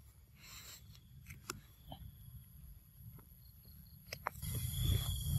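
Forest ambience: a steady high insect drone under a low rumble, with scattered small clicks and snaps. The rumble grows louder about four and a half seconds in.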